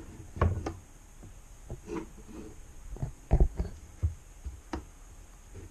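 A handful of separate knocks and clicks from handling a cabinet door on its concealed hinges, the loudest about three seconds in, with a low hum between them.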